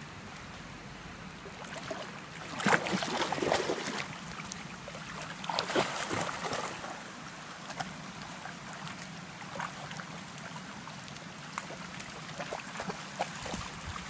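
A shallow stream runs over stones while dogs, among them a Dogue de Bordeaux puppy, wade and splash through it. The splashing is loudest in two bouts, about three and six seconds in.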